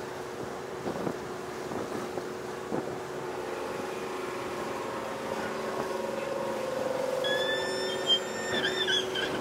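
A river car ferry's engine running with a steady drone. About seven seconds in, a high-pitched wavering squeal sounds for a couple of seconds.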